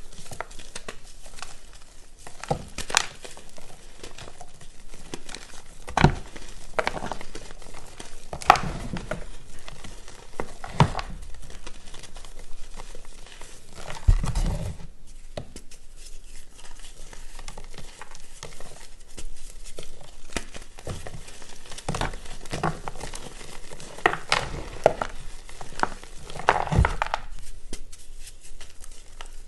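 Reformed gym chalk discs crunching and crumbling as they are crushed, a steady irregular crackle with several louder, sharper snaps as pieces break apart.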